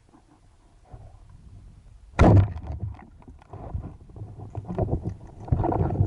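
Water splashing and bubbling around a spearfisher, with a sudden loud knock about two seconds in. Irregular splashy crackling then grows louder.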